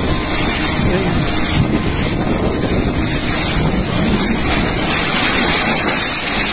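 Strong typhoon wind blowing hard and buffeting the microphone in a loud, steady rush with an uneven low rumble.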